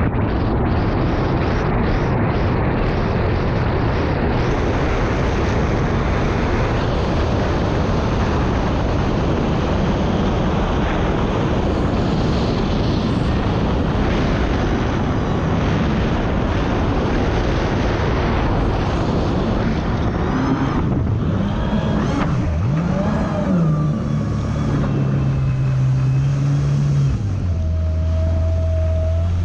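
Kawasaki Ultra 300X personal watercraft running at speed, its engine under a heavy rush of wind and spray on the hull-mounted camera. About twenty seconds in it comes off the throttle: the engine note falls and settles to a low, steady hum as the craft slows to a crawl.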